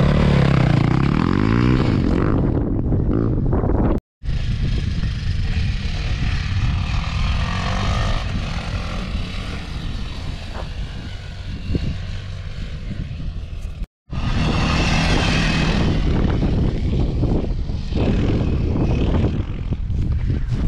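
Dirt bike engine revving up and down close by, then running under load while riding a dirt track, with wind rushing over the microphone. The sound cuts out briefly twice, at edits.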